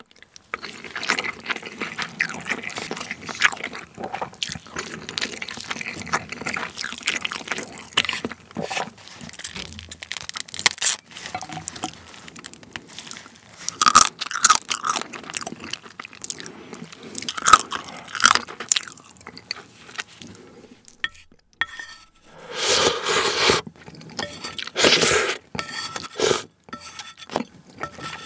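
Close-up wet chewing and crunching of soy-sauce-marinated raw crab (ganjang-gejang) and rice, with sucking of crab meat out of the shell. Two louder noisy bursts come a little over twenty seconds in.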